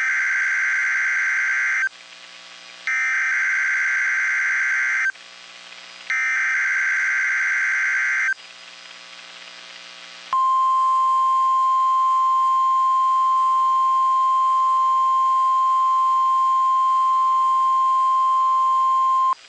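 NOAA Weather Radio Emergency Alert System signal for a required weekly test. Three roughly two-second stretches of SAME digital header data, each a harsh electronic screech, come about a second apart. About ten seconds in they give way to the steady, single-pitched 1050 Hz warning alarm tone, held for about nine seconds.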